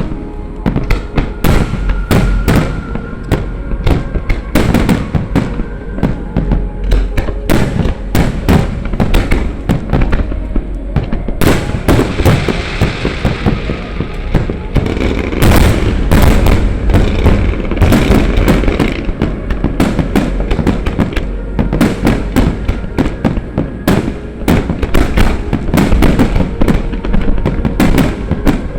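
A large fireworks barrage: aerial shell bursts going off in rapid, overlapping booms, mixed with crackling, thickest around the middle.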